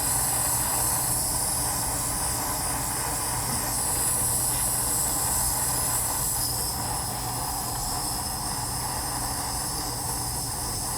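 Jeweller's soldering torch flame hissing steadily while it heats a bezel seam to draw hard solder up through the joint. The hiss eases a little in the second half.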